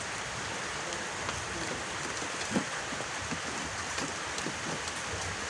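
Steady hiss of water, with a few faint ticks.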